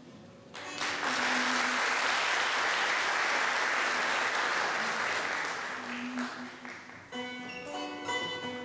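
Audience applauding, starting about half a second in and dying away after about six seconds. Near the end, plucked string instruments of a Turkish classical ensemble start playing a melody.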